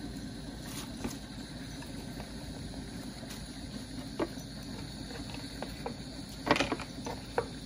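Steady low mechanical hum, with a few light clicks and taps as cucumber slices are set down on a plate of salad greens, the loudest about six and a half seconds in.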